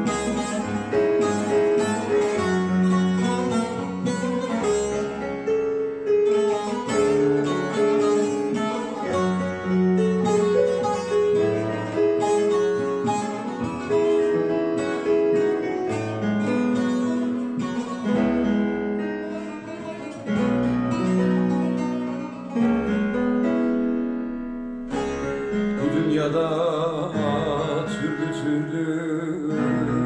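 Bağlama (Turkish long-necked saz) played solo, picking out a steady run of plucked melody notes as the instrumental opening of a Turkish folk song. About 25 seconds in the sound breaks off briefly, and near the end a man's voice comes in with long wavering notes over the strings.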